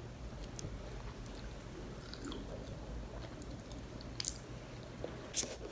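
Quiet chewing of candied sweet potato, with a few faint sharp clicks.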